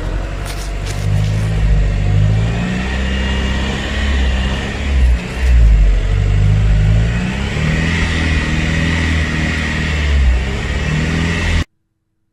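The 1.9 TDI diesel engine of a 2003 VW Passat turning over slowly on its starter motor without catching, then cutting off abruptly near the end. The cranking is too weak to start a diesel, which the mechanic blames on a weak battery or a worn starter motor.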